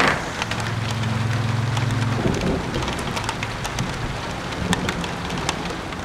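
Steady rain falling, with many individual raindrops ticking sharply through the even hiss. A low steady drone sits underneath for about the first two seconds.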